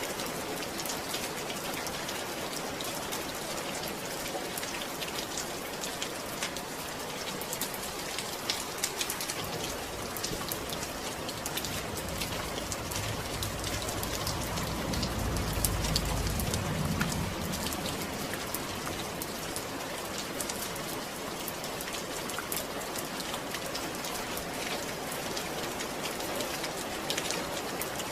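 Steady rain falling on a surface, with many small drop taps. A low rumble swells and fades around the middle.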